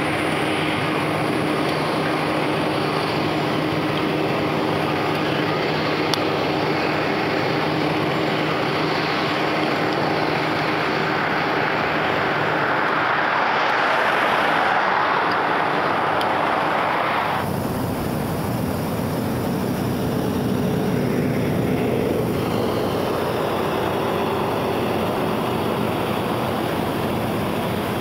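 A steady engine drone with a low hum, swelling louder a little past the middle. It then cuts off suddenly to a low, even rumbling hiss.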